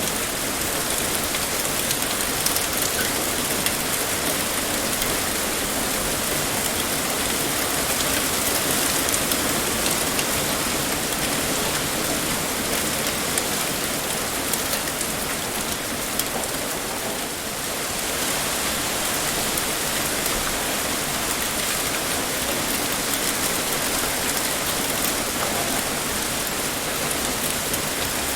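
Heavy rain pouring steadily, a dense even hiss peppered with sharp drop ticks, dipping briefly about two-thirds of the way through.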